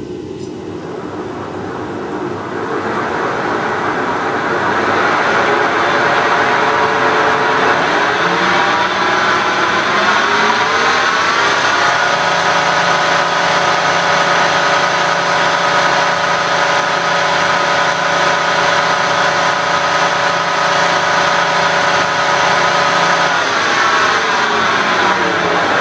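Wells Index vertical milling machine's spindle drive running in high range, a whine made of many steady tones. It climbs in pitch and loudness over the first dozen seconds, holds steady, then shifts near the end. The run is a test of the high range, which is giving trouble, while the head is being floated (cover screws loosened so the head can settle into alignment).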